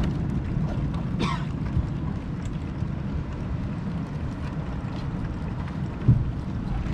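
Steady low rumble of wind on the microphone and the sea around a small boat, with a single thump about six seconds in.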